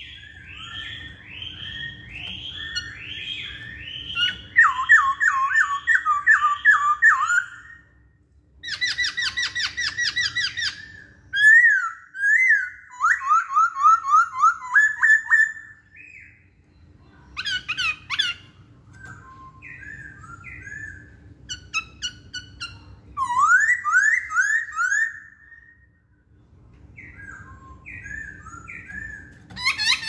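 Black-throated laughingthrush singing loudly: varied phrases of rapid repeated whistled notes and upward slurs, several in a row, broken by short pauses.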